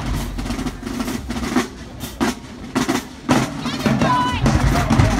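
Marching band drumline playing a cadence, snare and bass drum strikes in a quick rhythm, with voices calling out over it from about four seconds in.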